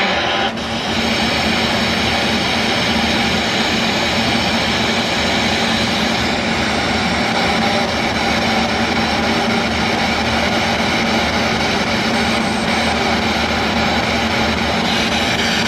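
Handheld spirit box radio scanning through stations, giving a loud, steady wash of static with a brief break about half a second in.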